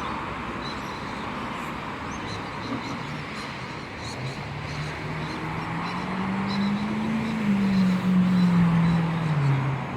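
A motor vehicle engine going by, its hum climbing in pitch for a few seconds and then falling away, over a steady outdoor background hiss.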